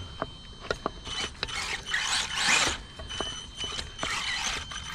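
Traxxas Mini Summit RC truck's electric motor and gearbox whirring in repeated short throttle bursts, with the tyres churning through mud and water, and a few sharp clicks.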